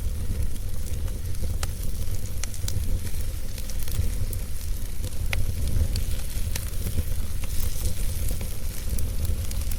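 Wood fire burning: scattered sharp crackles and pops over a steady hiss and a low rumble.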